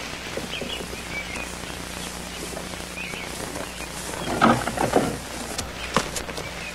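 Outdoor countryside ambience: small birds chirping now and then over a steady low background, with one louder, lower animal call about four and a half seconds in.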